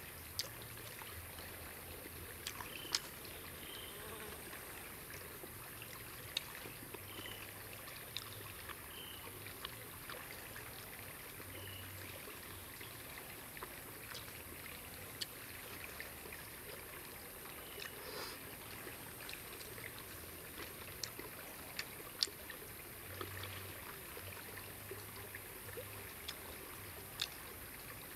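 Steady running water of a small forest stream, with scattered sharp clicks and a few short high chirps in the first half.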